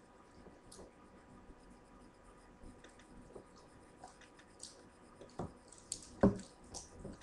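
Hands handling a small plastic basket, giving scattered soft taps and clicks, with two sharper knocks about five and a half and six seconds in.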